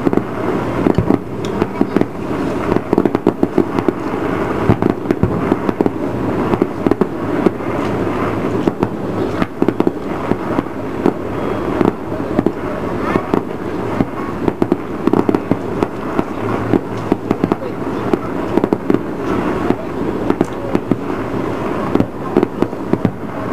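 Fireworks display going off: a dense, unbroken stream of overlapping pops and bangs.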